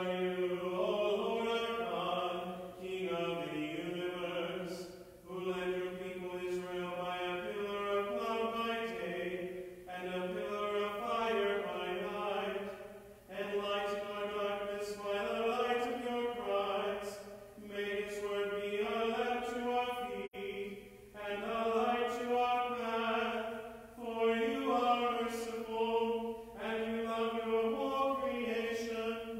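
A single male voice chanting the liturgy of Vespers. Each phrase holds long level notes that step up and down, with short breaks between phrases every few seconds.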